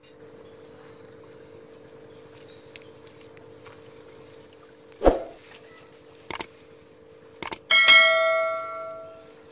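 Subscribe-button sound effect: a few short clicks and then a bright bell ding that rings out and fades over about a second near the end. A single sharp thump comes about halfway through, over a faint steady hum.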